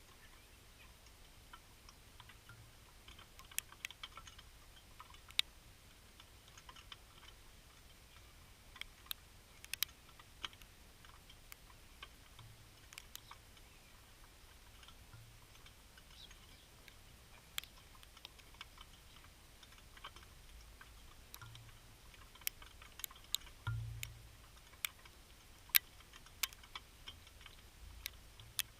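Sparse, irregular sharp clicks and ticks over a quiet background, with a soft low thump about 24 s in.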